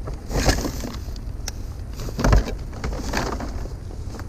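Junk in a curbside trash pile being moved and knocked about by hand, in irregular clatters with a heavy thump a little past halfway.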